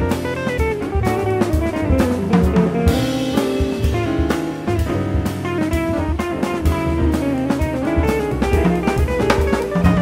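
Jazz band playing: an electric guitar plays a melodic line over drums and a bass.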